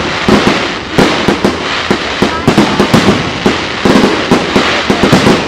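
Fireworks display: many sharp bangs of aerial shells bursting in quick, irregular succession over a continuous loud crackle.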